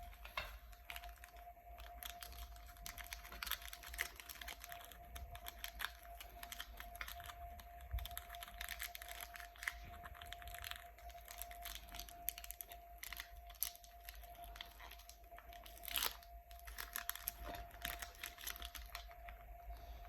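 Chocolate bar wrappers being crinkled and torn open by hand: dense, irregular crackling with sharper snaps, thinning out near the end.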